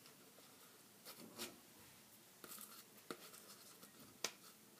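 Faint scratching and a few light clicks of fingers picking and rubbing at a plastic soda bottle.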